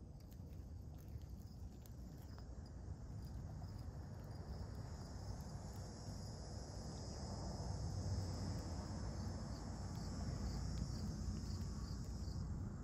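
Insects chirping in a steady, high-pitched chorus that grows stronger about halfway through, over a faint low rumble.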